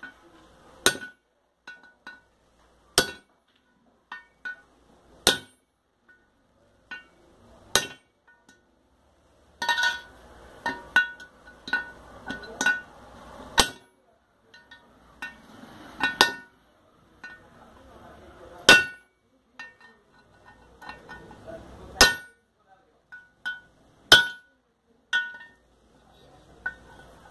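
Hammer blows on metal, driving a bearing into an aluminium motorcycle crankcase half. Sharp strikes come about every two to three seconds, each ringing briefly, with lighter taps and some clatter of parts in between.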